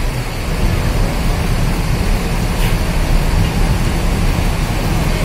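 Diesel bus engine idling: a steady, loud low rumble with a fine pulsing beat, over the general noise of a busy bus terminal.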